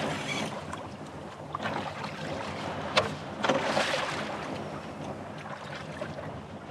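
Wind on the microphone and water around a kayak, with a sharp knock about three seconds in and a short rush of water noise just after.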